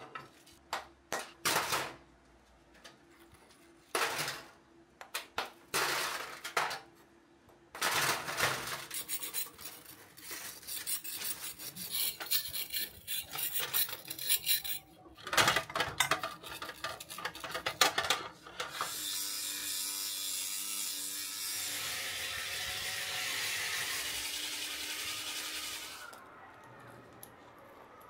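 A freshly poured mold being broken apart in a metal tray, with hard knocks and clinks of mold chunks and the iron casting, and a metal scraper grating and chipping at the mold material. About 19 s in, a steady rushing noise takes over for about seven seconds, then stops.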